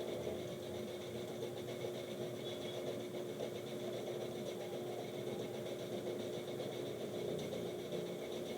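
Fan running steadily, a continuous whir with a steady hum, as the powered-on desktop is tested for display.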